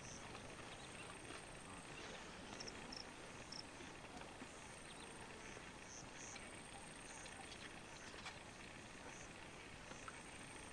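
Faint outdoor ambience of the bush: a low steady hiss with scattered short, high chirps.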